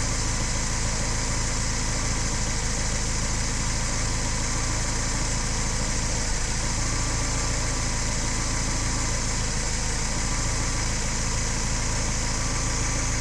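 Car engine run by a DTA S80 aftermarket engine control unit, idling steadily while misfiring.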